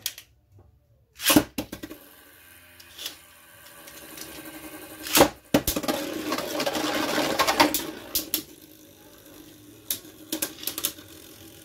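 Two Beyblade spinning tops, Orb Aegis and Grand Valkyrie, are launched into a clear plastic stadium with a sharp clack. They spin with a steady whir and scrape on the stadium floor, which swells midway. They strike each other with a loud clack about five seconds in and a run of quick clacks near the end.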